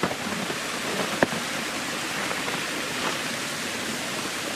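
Steady rushing of a waterfall. A single sharp click sounds a little over a second in.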